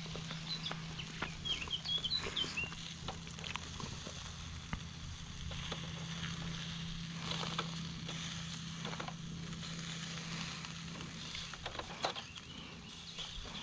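Light clicks and scrapes of a metal fork and a spatula turning steaks on a disposable aluminium grill. A small bird chirps a quick run of short notes in the first couple of seconds, over a steady low hum.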